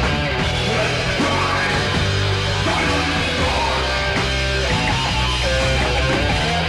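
Thrash metal band playing live in a rehearsal room: distorted electric guitars, bass and drums at full volume.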